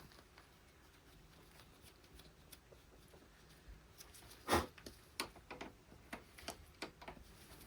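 Mostly quiet, with one sharp knock about halfway through and a handful of light clicks and taps after it: hands and tools handling the hydraulic cylinder's parts during reassembly.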